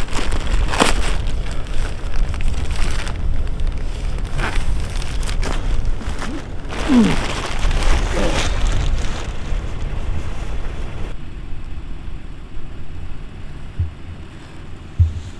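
Black plastic bag and duct tape crinkling and crackling as they are wrapped, a dense rustle with louder crackles. About eleven seconds in it gives way to a quieter low car engine rumble.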